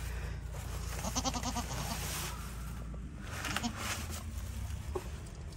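A goat bleats once, a short wavering call about a second in, with soft rustling and handling noise around it.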